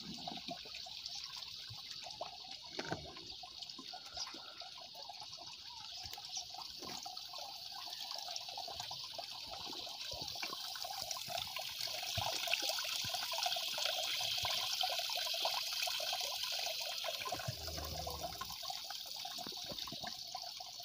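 Water running and trickling steadily into a concrete cattle trough from its supply pipe, a continuous splashing hiss that grows louder around the middle, with a few faint knocks.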